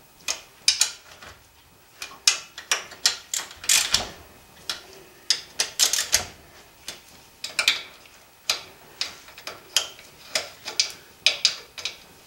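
Hand socket ratchet clicking in short, irregular runs of sharp clicks as it runs down and tightens the valve cover bolts on an overhead-valve Kohler engine.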